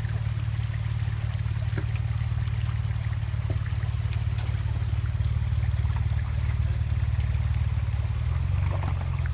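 Jeep Wrangler JK engine running at low, steady revs while crawling up a rocky waterfall, with a few faint knocks. The engine note shifts about 8 seconds in.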